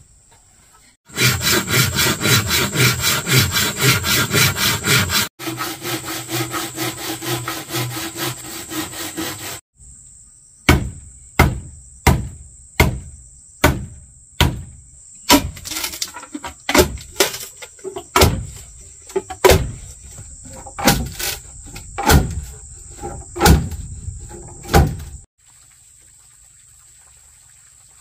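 Hand tools at work on wood: a few seconds of fast rasping strokes, then steady scraping, then about twenty sharp blows roughly one and a half a second. A steady high insect buzz runs underneath and is all that is left near the end.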